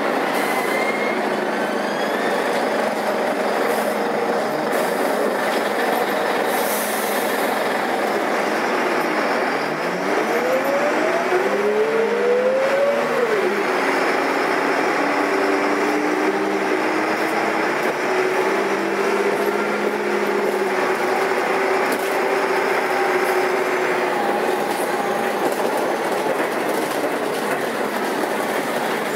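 Karosa B941 articulated city bus's diesel engine running under way, heard from on board, over steady road noise. About ten seconds in, its pitch rises as the bus accelerates, falls back, then holds steady for a while.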